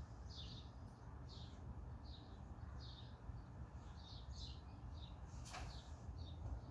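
A bird chirping over and over, short chirps about once or twice a second, over a faint low rumble. A single sharp click about five and a half seconds in.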